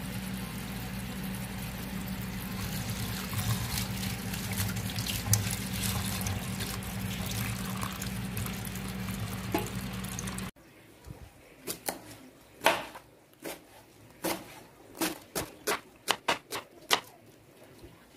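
Tap water pouring steadily into a glass bowl of dry rice noodles, cutting off abruptly about halfway through. After that comes a run of irregular, sharp knife strokes on a wooden cutting board as vegetables are chopped.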